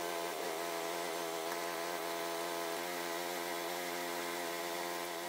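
Honda PCX scooter's single-cylinder four-stroke engine idling steadily.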